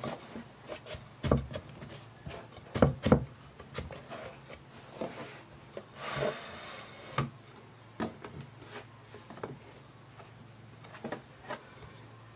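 Wooden spacer strip being handled and fitted into a wooden frame: scattered light knocks and taps of wood on wood, with a brief rub about six seconds in.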